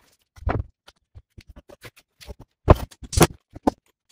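Footsteps and the rattle of a loaded tool belt, then several sharp wooden knocks about three seconds in as 2x4 studs are picked up from a stack.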